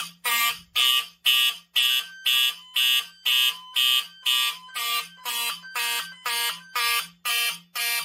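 Wheelock and Simplex fire alarm horn strobes sounding together in alarm, a loud pulsing horn tone about twice a second, set off by a magnet-tested Silent Knight photoelectric smoke detector.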